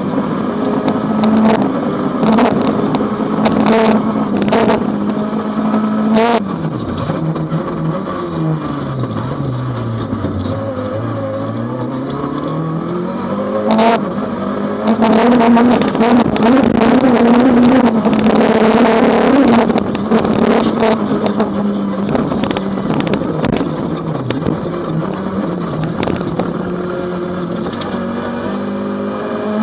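Toyota Corolla GTI rally car's four-cylinder engine heard from inside the cabin, running hard at steady high revs, then the revs falling slowly for several seconds and climbing again as the car slows and accelerates out. Sharp knocks and clatter sound throughout, and a loud rushing hiss for several seconds past the middle.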